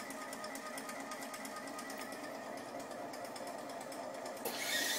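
Pump of a LaCimbali M3 espresso machine's milk-system cleaning cycle running with a steady, rapid rhythmic ticking as it draws cleaning water through the system. Near the end, a louder rushing hiss of water pumping out sets in.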